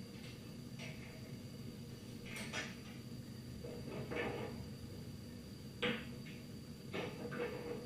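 Metal parts being handled as a side vise and workpiece are taken off a milling machine: a few clunks and scrapes, with the sharpest knock about six seconds in, over a steady low shop hum.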